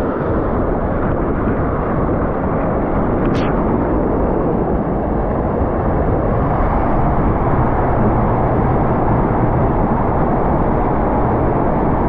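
Water rushing and churning under a raft tube as it runs down a rafting waterslide's rapids, a loud, steady, muffled rumble.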